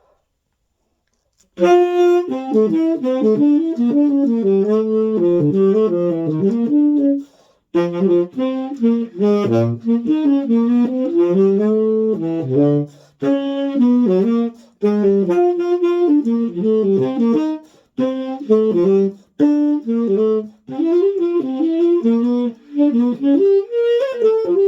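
Tenor saxophone with a 3D-printed SYOS Smoky 7 mouthpiece and a Vandoren 2.5 reed, playing a quick jazz line. It starts about a second and a half in, in phrases broken by short pauses for breath. The player finds the tone not as dark as he expected.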